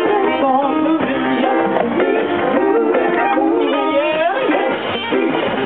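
A live swing band playing, with a woman singing lead over the band.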